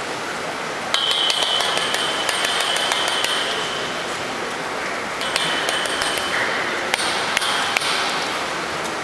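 Three sharp knocks on a metal pool ladder about seven seconds in, roughly half a second apart: a coach's time signal to a freediver underwater, marking two minutes into the breath-hold dive. Behind them runs a steady background with light ticking and a high steady tone that comes and goes.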